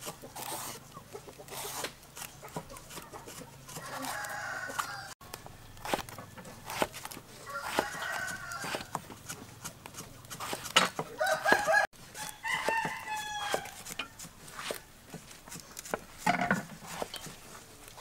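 Roosters crowing several times, over short sharp taps of a knife slicing eggplant on a wooden chopping board.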